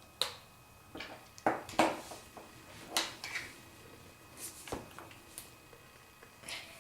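Small plastic doll parts clicking and knocking as they are handled and pushed together: a dozen or so irregular sharp clicks and taps.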